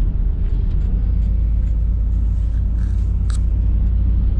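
Pickup truck driving at a steady pace, a continuous low engine and road rumble heard from inside the cab, with a brief click about three seconds in.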